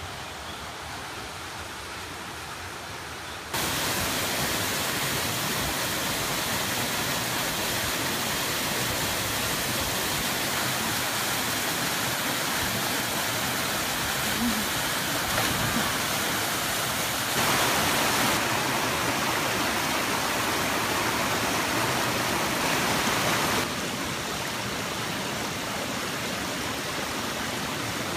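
Rushing water from a waterfall and a stream cascading over rocks: a steady rushing noise, fainter at first, jumping louder about three and a half seconds in and changing level twice more later on.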